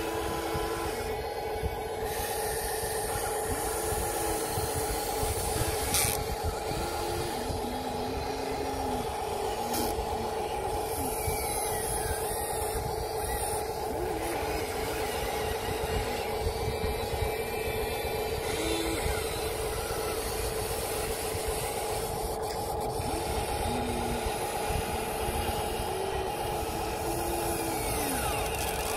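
Electric motors and gearboxes of a Huina RC excavator and RC dump truck running: a steady two-note whine throughout, with short motor notes coming and going every few seconds as the models work.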